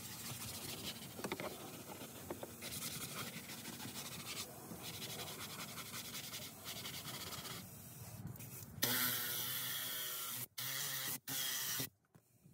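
Microfiber towel rubbing and scrubbing cleaner over a leather car seat, a scratchy, even wiping sound. About nine seconds in, a louder steady sound starts, cuts out briefly twice, and stops just before the end.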